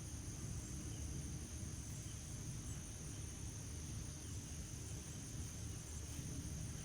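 Quiet outdoor ambience: a low, steady rumble with a thin, steady high-pitched drone above it.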